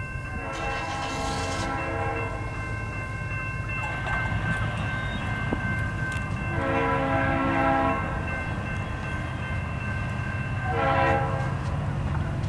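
Norfolk Southern diesel freight locomotive's air horn blowing the grade-crossing signal: a long blast about half a second in, a second long blast around six and a half seconds, and a short blast near eleven seconds, over the steady low rumble of the locomotives' diesel engines. A steady high-pitched ringing from the crossing signal runs under it and stops near the end.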